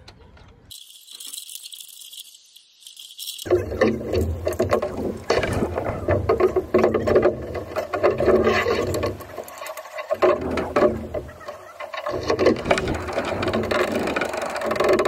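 Metal rigging hardware on a mast-raising A-frame rattling and clicking. It is faint at first, then from about three seconds in becomes a loud, dense clatter.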